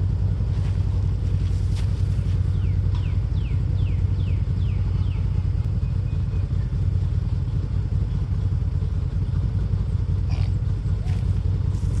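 Can-Am Commander engine idling steadily, running to circulate coolant and push trapped air out of the cooling system through a radiator burp funnel.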